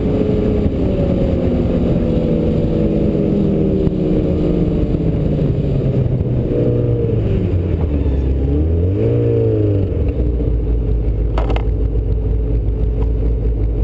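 Yamaha snowmobile engine dropping in pitch as the sled slows, with a short rev about nine seconds in, then settling into a steady low idle. A single knock sounds near the end.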